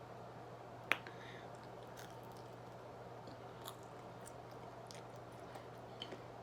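A person chewing a mouthful of pizza: faint mouth and chewing sounds with one sharp crunch about a second in and a few softer clicks after it.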